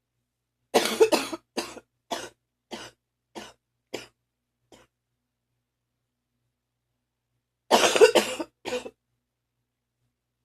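A person's phlegmy morning coughing fit: a harsh burst of coughs, then a run of about six weaker coughs, each fainter than the last. After a few seconds' pause comes another hard burst of two or three coughs.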